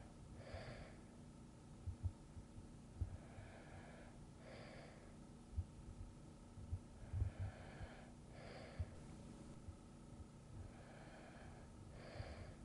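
A sleeping person breathing slowly and softly, about one breath every four seconds, each a quieter in-breath followed by a stronger out-breath. Faint, irregular low thuds sit underneath.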